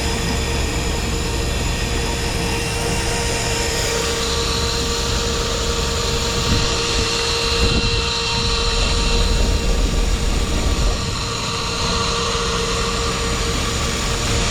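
A boat's engine running with a steady drone and a constant hum, its low rumble swelling a little about halfway through.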